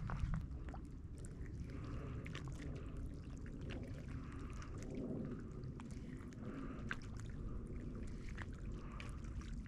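Water lapping and gurgling at the shoreline, rising softly every couple of seconds, over a low steady rumble, with scattered faint clicks.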